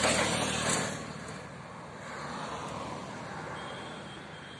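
Road traffic passing: a steady rush of tyre and engine noise that drops off about a second in and then continues more quietly.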